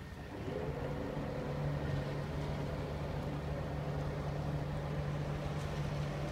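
Boat engine starting about half a second in, rising briefly in pitch, then running at a steady low hum.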